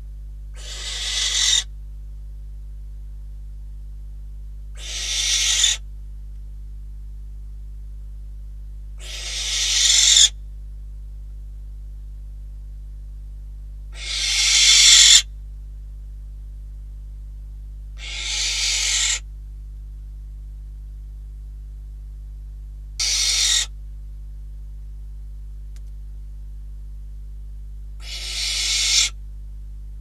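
Barn owl giving a run of harsh hissing calls, seven in all, about one every four to five seconds; each lasts about a second, grows louder and then cuts off sharply.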